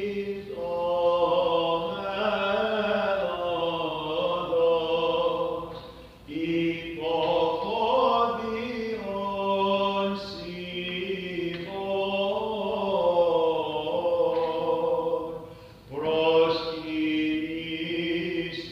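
Orthodox Vespers chant: a sung hymn line moving slowly over a steady held low drone. There are two short breaks between phrases, about six and sixteen seconds in.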